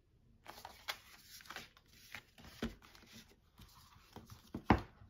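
Cardboard DVD packaging and paper booklets being handled on a table: rustling and sliding with small clicks, and two knocks, one about halfway and a louder one near the end.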